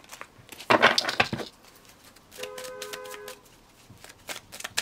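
A car horn honks once, about two and a half seconds in, with two steady notes held together for about a second. Before it, a short, loud rustle.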